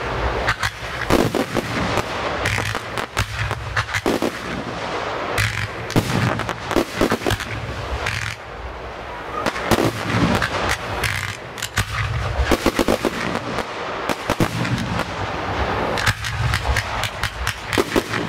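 Professional fireworks display: a dense, irregular run of bangs and cracks from aerial shells and cakes bursting overhead.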